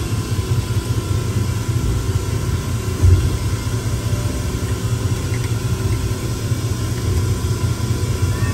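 Amusement-park track-ride car running along its guided track, heard from inside the car: a steady low rumble with a few faint steady tones above it.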